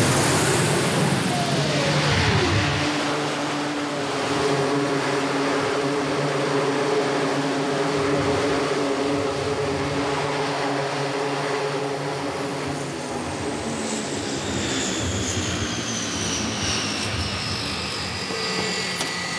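E-2C Hawkeye's twin turboprop engines and propellers during an arrested landing on a carrier deck: a loud rush at touchdown, the engine pitch falling within the first few seconds, then a steady propeller drone. Over the last third a high turbine whine slowly falls in pitch as the engines wind down.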